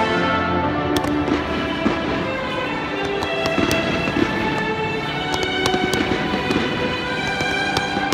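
Fireworks going off in a rapid string of sharp cracks and bangs over loud music.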